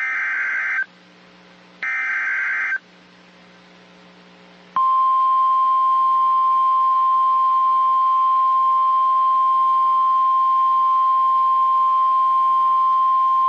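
NOAA Weather Radio alert: the last two bursts of the SAME digital header, a short warbling data screech each, then after about two seconds of pause the 1050 Hz warning alarm tone, one steady loud beep lasting about nine seconds. The tone signals that a warning broadcast, here a severe thunderstorm warning, follows.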